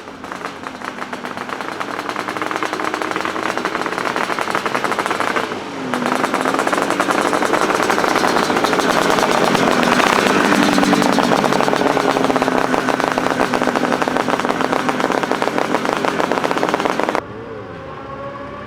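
Classic racing sidecar outfits at full throttle, engines revving hard with the pitch rising and dipping through gear changes. The sound breaks off sharply about six seconds in, and near the end it drops suddenly to a quieter engine note.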